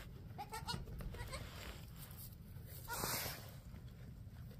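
A few faint, short goat bleats about half a second in, then a brief rustle of straw around three seconds in.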